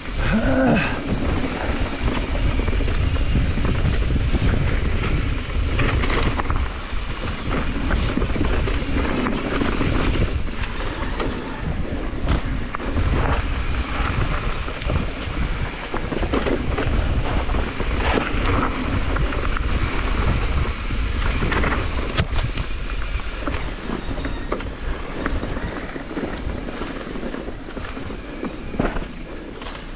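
Wind buffeting the microphone: a steady, loud low rumble with brief louder gusts.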